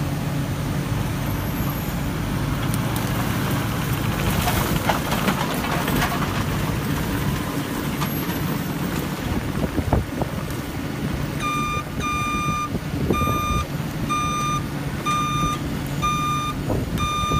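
Diesel engine of a Case compact track loader running steadily, with a sharp knock about ten seconds in. From about eleven seconds in, a backup alarm beeps a little faster than once a second as the machine reverses.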